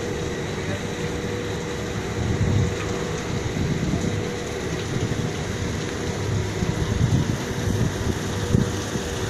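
Wind buffeting the microphone: a low rumble that swells and falls irregularly, over a faint steady hum.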